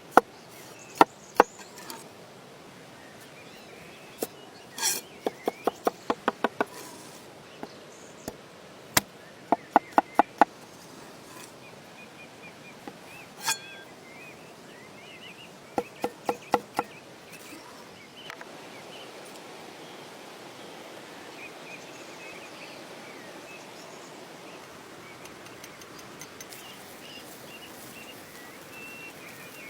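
Sharp knocks in short quick runs of about four to six a second, in the manner of chopping on a board. About two-thirds through, a steady hiss sets in, with faint bird chirps.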